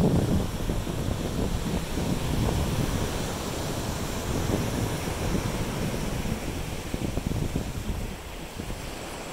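Wind buffeting the microphone: a steady, uneven low rumble that eases a little near the end.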